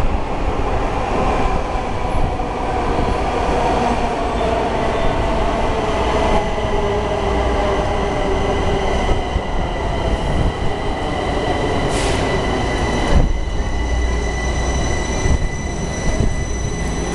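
Washington Metro train pulling into the station: rumble and rail noise from the cars, with a motor whine that falls in pitch over the first several seconds as the train slows. A steady high-pitched squeal from the wheels or brakes runs over it.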